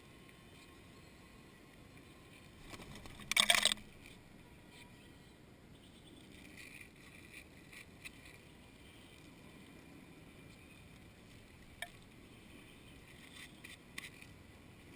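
Feral pigeons feeding on paving right around the microphone: faint open-air ambience with a few light taps, and one brief loud rustling burst about three and a half seconds in.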